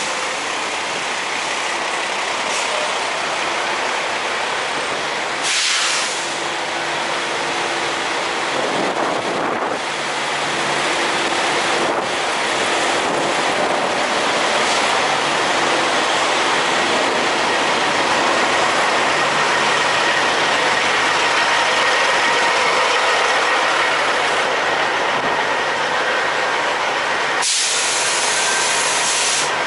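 Steady noise of idling diesel semi trucks around a truck-stop fuel island, with a faint steady hum. Two louder bursts of hiss break in, a short one about five seconds in and a longer one of about two seconds near the end.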